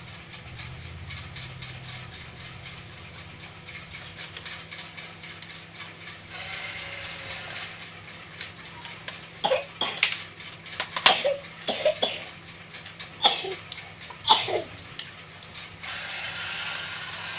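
A toy's geared mechanism clicking fast and evenly like a ratchet for the first several seconds. Midway through, several loud, sharp coughs from a child break in.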